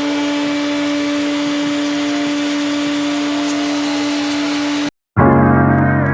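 A small electric motor, such as a power tool or shop vac, running steadily at full speed with a whine and a hiss. It stops dead about five seconds in, and music follows.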